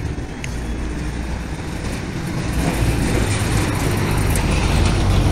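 Street traffic rumbling, growing louder about halfway through as a heavier vehicle passes.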